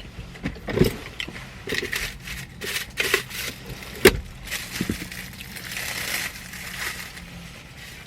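Close-up chewing of a crusty toasted baguette sandwich: irregular crunching and crackling of the bread crust, with a sharp crunch about four seconds in.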